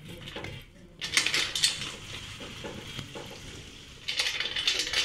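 Clattering and clinking of metal parts being handled, in two louder spells, about a second in and again from about four seconds in.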